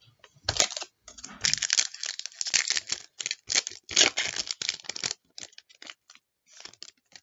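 A trading card pack wrapper being torn open and crinkled: a run of tearing and rustling for about four and a half seconds, then a few light rustles and clicks as the cards are handled.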